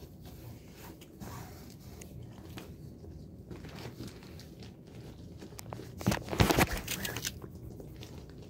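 Blue plastic tarp of a rolled-up bed roll crinkling and rustling as hands pull paracord around it and work a knot, with a louder burst of crinkling about six seconds in.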